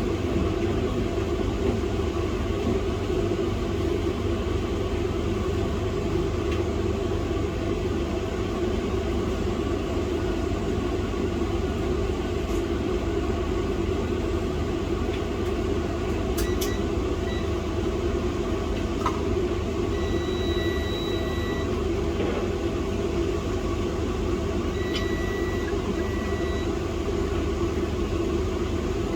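Steady workshop hum and rumble like a fan or blower running, unchanging throughout. A few short, steady high-pitched tones sound about two-thirds of the way in, and twice more near the end.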